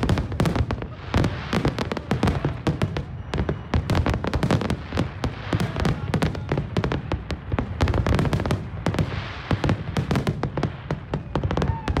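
Fireworks display: a rapid, unbroken run of bangs and crackles, several a second, over a low rumble.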